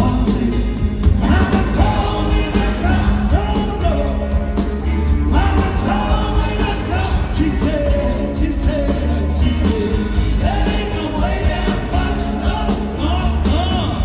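Rock band playing live: male voices singing the melody over electric guitars, bass and drums, recorded from the audience in a theatre hall.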